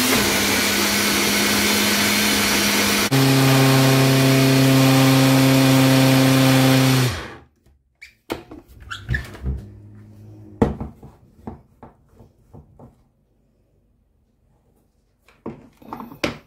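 Single-serve smoothie-maker blender motor running loud on thick chickpea purée for hummus. Its pitch drops suddenly about three seconds in, and it stops after about seven seconds. A series of clicks and knocks follows as the jar is taken off the base.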